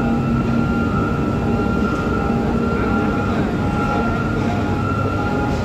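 Steady loud industrial din of a steel plant melt shop while a ladle pours molten metal, with a steady high hum and a warning-like tone that sounds on and off about once a second.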